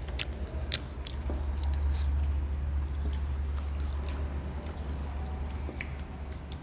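People chewing McDonald's french fries close to the microphone, with a few short clicks scattered through, over a steady low hum.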